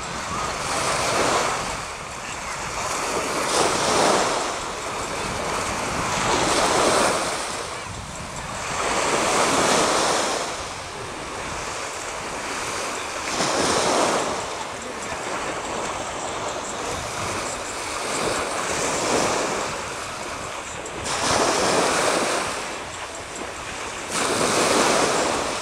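Small waves washing and breaking in shallow bay water, swelling and fading every few seconds.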